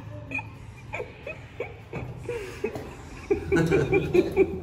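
Laughter: a quick run of short "ha" sounds beginning about three seconds in, preceded by a few faint clicks.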